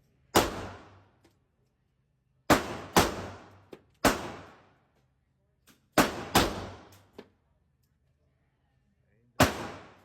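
Gunshots at a shooting range: seven irregularly spaced shots, some in quick pairs, each followed by a short ringing decay, with a few fainter clicks between them.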